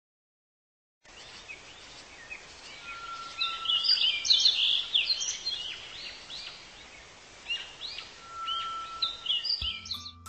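Several birds singing and chirping in quick, varied phrases with an occasional long steady whistle, over a faint outdoor hiss, starting about a second in. Music with plucked or chiming notes comes in near the end.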